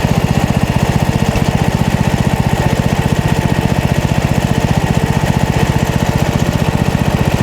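Small gasoline engine of a MechMaxx SM32 portable bandsaw mill running steadily, with an even, rapid pulse.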